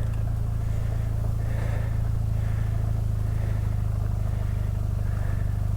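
BMW R1250RT's boxer-twin engine running at a steady, low speed, a constant low drone with no revving, over a haze of tyre noise on a loose gravel track.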